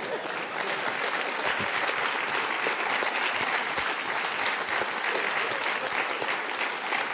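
Studio audience applauding after a punchline; the clapping builds over the first second and thins out near the end.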